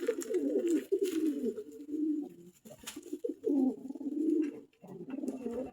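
Domestic pigeons cooing: low, warbling calls in runs, with brief pauses about two and a half seconds and about five seconds in.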